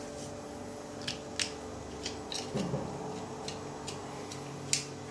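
A small plastic phone-charger casing being handled, giving a few scattered light clicks and taps over a steady low hum.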